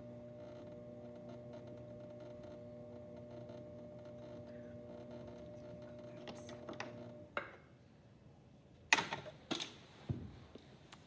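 Electric pottery wheel's motor humming steadily, then switching off about seven seconds in. A few sharp knocks and clatters follow near the end.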